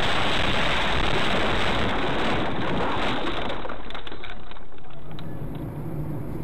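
Steady rushing noise inside a moving car, picked up by a dash camera. It drops off about five and a half seconds in, leaving a quieter, steady engine hum.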